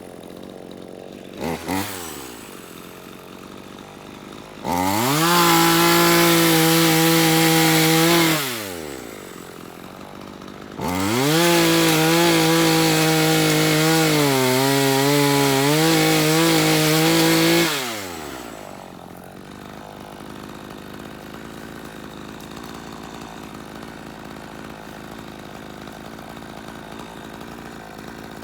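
Gas chainsaw idling, revved to full throttle twice: for about three and a half seconds starting about five seconds in, then for about seven seconds, each time winding back down to idle. During the second run the pitch sags for about a second midway, as when the chain bites into wood.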